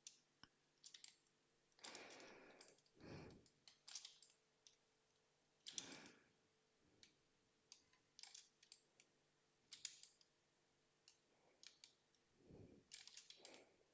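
Faint, scattered clicking of a computer mouse and keyboard, with a few softer, longer rustles in between.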